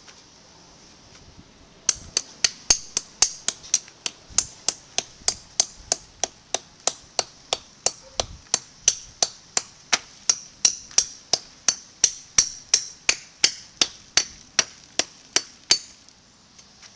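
Hammer striking steadily, about three blows a second, starting about two seconds in and stopping shortly before the end, as a plastic root barrier sheet is fastened down.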